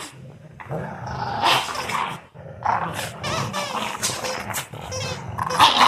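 Dogs growling in irregular bursts while they pull at each other in a tug-of-war play fight.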